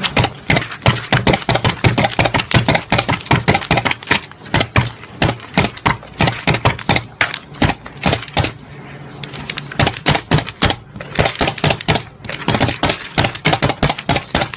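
A self-inking rubber stamp is slammed onto sheets of paper in a stack in very quick succession: a rapid run of sharp clacks and thumps, several a second. It thins out briefly about eight to ten seconds in, then carries on.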